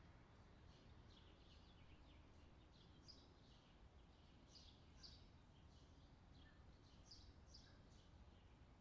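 Faint outdoor summer ambience: small birds chirping in short, repeated calls over a steady low background rumble.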